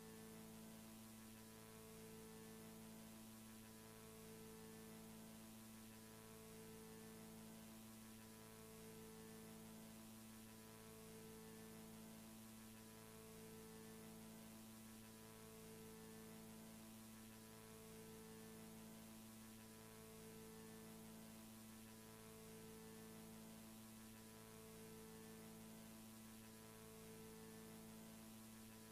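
Near silence: a faint steady electrical hum with hiss, a couple of its tones pulsing on and off about every two seconds.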